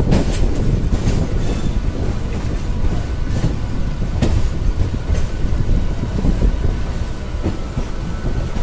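Train running on the track: a steady low rumble with a few irregular knocks of the wheels over rail joints.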